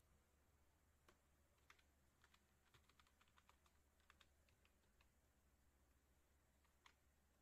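Faint typing on a computer keyboard: a quick run of keystrokes from about a second in to about five seconds, then two more keystrokes near the end.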